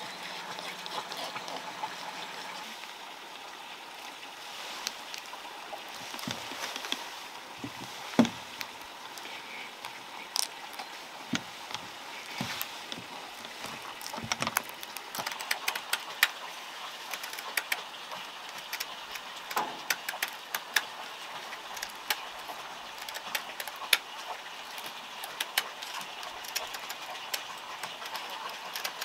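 Sandpaper and a switched-off angle grinder being handled by hand: scattered light clicks, taps and paper rustles over a steady background hiss, with one sharper knock about eight seconds in.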